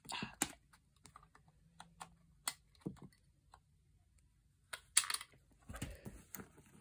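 Small plastic LEGO-style brick and tile pieces clicking and clattering as they are handled on a rug. The clicks are scattered, with a louder clatter about five seconds in.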